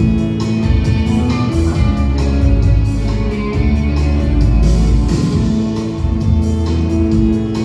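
Live band music in an instrumental passage with no singing: strummed guitars over a steady bass, with regular percussive hits.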